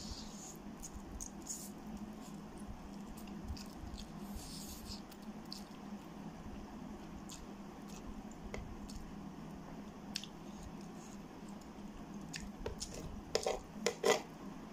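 Close-miked eating sounds: wet chewing of soft instant noodles and fried egg, with scattered small mouth clicks over a steady low hum. Near the end come a few louder clicks as a metal spoon scrapes noodles and egg off the tray.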